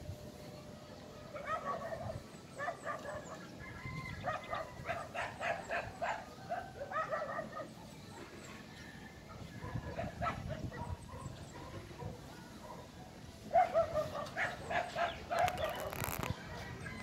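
Domestic animals calling in groups of short, repeated pitched calls that come and go several times.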